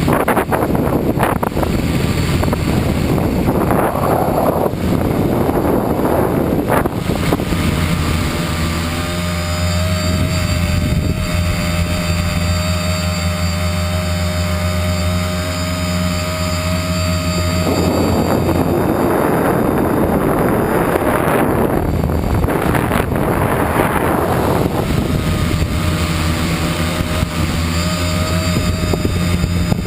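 Homebuilt tricopter's electric motors and propellers buzzing steadily in flight, the pitch shifting as the throttle changes. Wind rushes over the microphone in two long swells.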